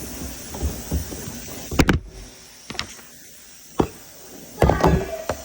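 A series of irregular knocks and clunks, about seven, the loudest about two seconds in and a quick cluster near the end: items, containers and shelves being moved about while a refrigerator is cleaned out.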